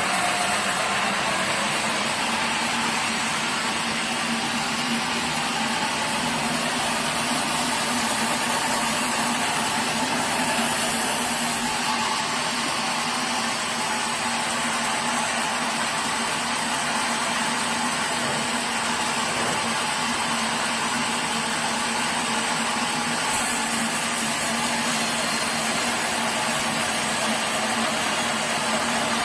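Sawmill machinery running steadily: a constant, even mechanical noise with a low hum, unchanging throughout.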